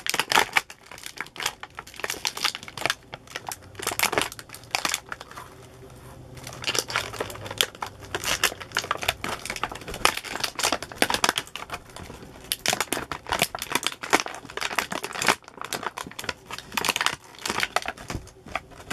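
Clear plastic toy bag crinkling and crackling as it is squeezed and worked by hand to free a small plastic figure. It comes in irregular rustles with a few brief lulls.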